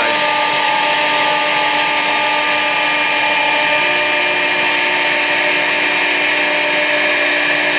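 CNC router spindle running steadily at high speed with a straight bit milling thick MDF board, a constant high whine over cutting noise. A lower tone joins about four seconds in.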